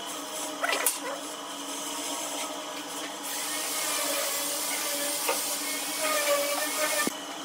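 White wood glue being spread across a wooden board with a metal scraper and then a brush: a steady scraping hiss that cuts off near the end.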